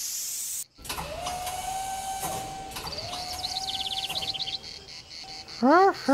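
Cartoon sound effects: a spray hiss that cuts off suddenly under a second in, then a motor-like whine that rises and holds, twice, with a fast ticking over the second whine as switches on a control panel are worked. Near the end a cartoon character gives a loud, wordless rising-and-falling call.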